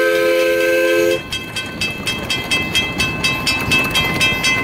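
Live steam locomotive sounding its chord whistle, which cuts off about a second in, then chuffing in quick, even beats of about four a second as it runs past.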